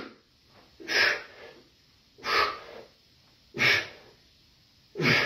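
A man breathing out hard in time with barbell bench press reps: four short, forceful exhales, one roughly every second and a half.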